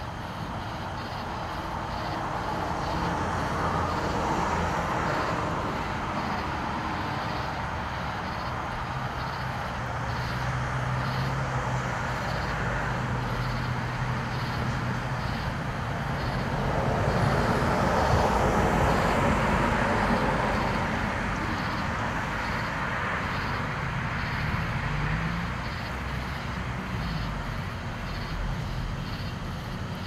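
Steady background rumble that swells and fades twice, the way passing traffic does. A low hum runs through the middle, and a faint high tick repeats a little more than once a second. The eclosing cicada itself makes no sound that can be picked out.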